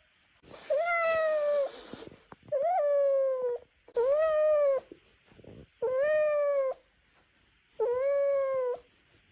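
A cat meowing over and over: five drawn-out meows, each about a second long and held at a nearly steady pitch, coming about every two seconds.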